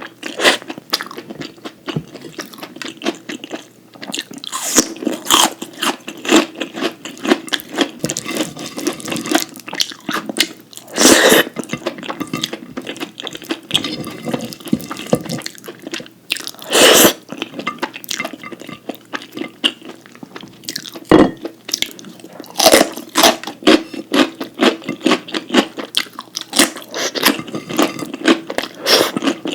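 Close-miked chewing and biting: a steady run of mouth clicks and crunches, with a few louder crunches about 11, 17 and 23 seconds in.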